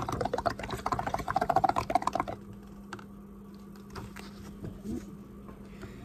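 Blowing through a paper straw into a cup of paint bubble mix: a fast, crackling bubbling that stops a little over two seconds in, followed by a few faint clicks.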